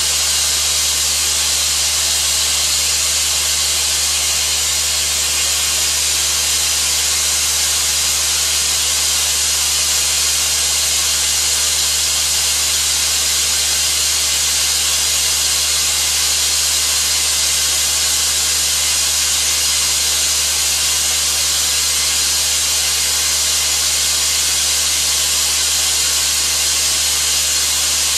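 Air-powered (pneumatic) explosion-proof Spillmaster 200 vacuum running continuously, its hose sucking up barley grass powder, with a loud, even hiss and a steady low hum underneath.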